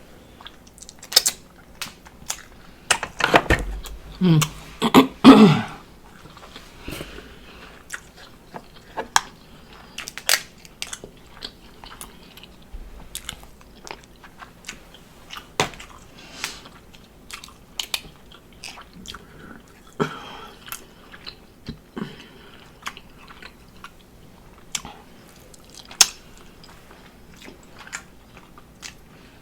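A person eating seafood close to the microphone: chewing and biting with many sharp clicks and small crunches. A loud hummed "mm" of enjoyment comes about four seconds in.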